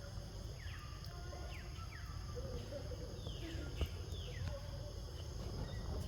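Several short, high animal calls, each falling quickly in pitch, over a steady low rumble, with a single click about four seconds in.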